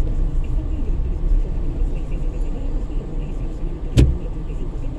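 Steady low engine and road rumble heard from inside a car's cabin as it rolls slowly up to queued traffic, with one sharp click or knock about four seconds in.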